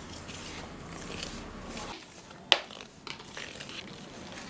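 A hand stirring and rubbing dry wheat flour, semolina and salt together in a stainless steel bowl: a soft, gritty rustle with a few light ticks, and one sharp click about halfway through.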